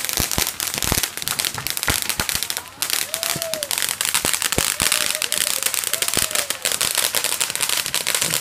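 Crackling ground fountain firework spraying sparks: a dense, continuous crackle and hiss, with many sharp pops.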